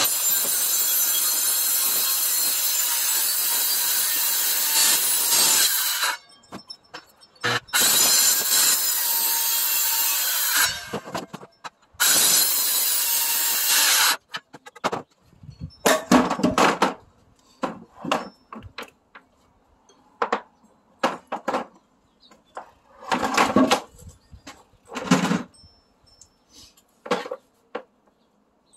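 Handheld circular saw cutting through a 4x4 timber in three runs, about six, three and two seconds long, followed by scattered knocks and thuds of the wood being handled.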